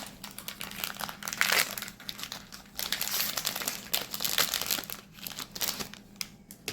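Foil booster pack wrapper crinkling as it is opened by hand, a dense crackle that dies down near the end.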